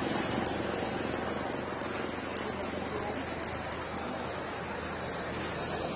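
Cricket chirping in a steady, fast pulse, about four chirps a second, over an even noise of vehicles passing on the road.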